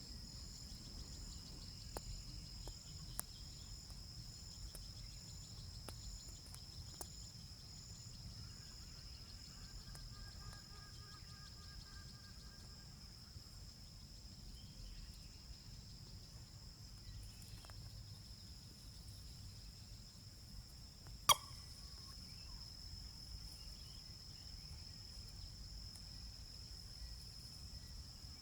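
Steady high-pitched insect chorus, with faint whistled bird calls around ten seconds in. One sharp click stands out about two-thirds of the way through.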